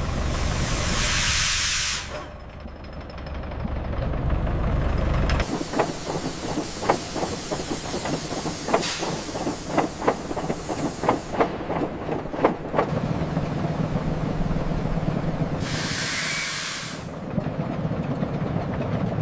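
Steam locomotive hissing off steam in a burst at the start and again briefly later, over a low rumble. In between comes a run of sharp, irregular metallic clanks, then a steady low hum.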